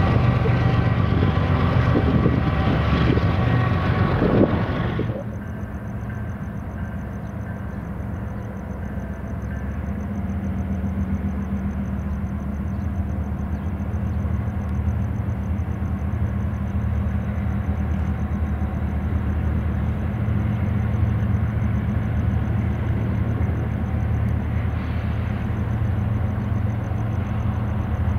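A CSX freight train rolls past close by, its cars running over the rails with several steady high tones over the rumble, until a sudden cut about five seconds in. After it comes the low, steady diesel engine rumble of a pair of CSX locomotives rounding a curve toward the listener, growing slowly louder.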